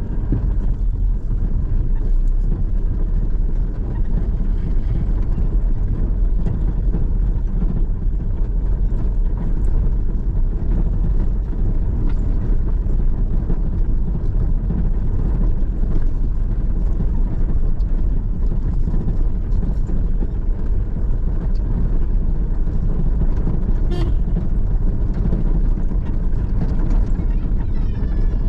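Vehicle driving along a rough dirt plantation road: steady low engine and road rumble.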